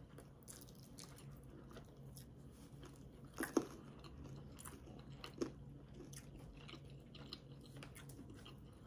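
Faint chewing and mouth sounds of a person eating, with two louder sharp smacks about three and a half and five and a half seconds in.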